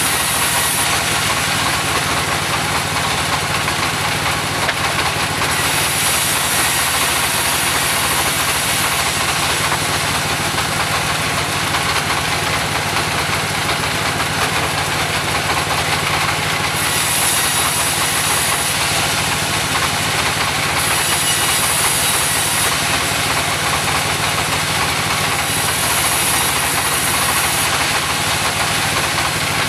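Mobile sawmill engine running steadily, with a high hiss that comes and goes every few seconds.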